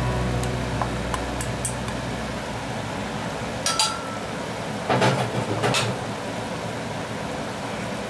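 Chicken-kimchi broth simmering in a clay pot on a gas stove, a steady hiss with bubbling, while a metal bowl and wooden chopsticks clink against the pot a few times. The sharpest clink, a little under four seconds in, rings briefly.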